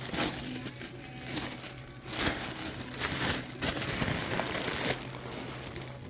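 Packaging rustling and crinkling as it is handled, in several irregular bursts, over a steady low hum.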